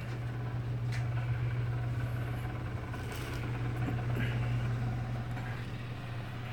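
A steady low hum, with a few faint clicks about a second in and again around three to four seconds in.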